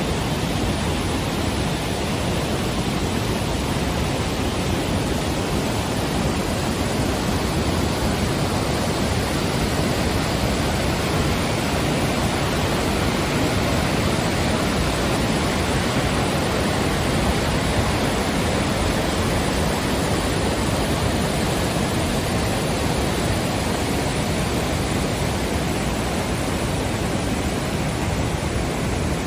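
Steady rushing of water from Sogi Falls, a broad curtain waterfall, an even wash of noise with no change in level.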